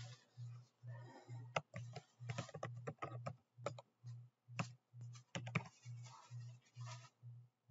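Computer keyboard keys tapped in irregular bursts, with a few sharper single clicks. Under them runs a low hum that pulses about twice a second.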